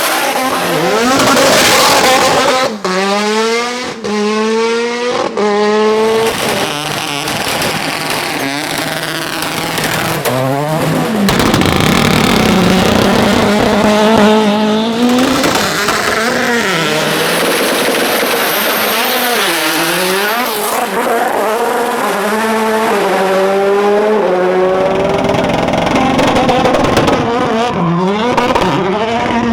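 Hill-climb race cars launching from the start, engines revving hard and accelerating up through the gears, the pitch climbing and dropping back at each upshift. It happens several times over, one car after another.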